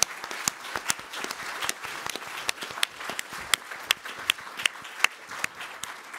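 Audience applause: a crowd clapping, thinning out and fading near the end.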